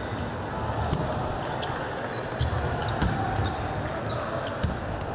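Table tennis balls clicking off paddles and the table in a rally, amid scattered clicks from rallies at other tables, with a few low thuds.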